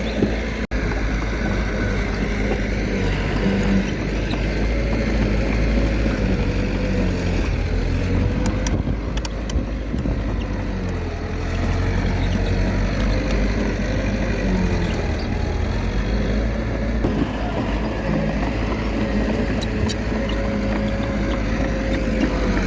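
Small Komatsu D21A bulldozer's diesel engine running steadily under load, its pitch wavering slightly up and down as it works. There is a momentary break in the sound just under a second in.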